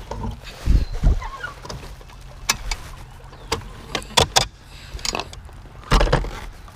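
Scattered knocks and clicks with a few heavy low thumps: gear being handled and people moving about in a small fishing boat.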